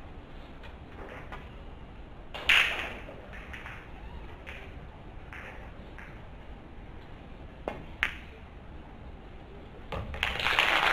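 Pool shot in a nine-ball match: one sharp click of cue and balls colliding about two and a half seconds in, two fainter ball clicks around eight seconds, then audience applause swelling near the end as the ball is potted.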